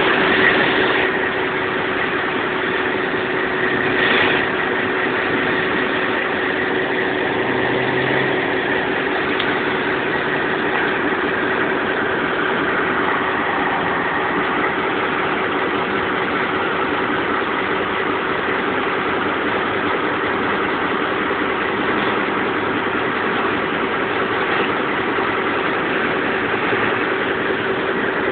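Diesel locomotive engine of a commuter train running under power as the train pulls away. It is a steady drone with a constant hum and an even rushing noise over it.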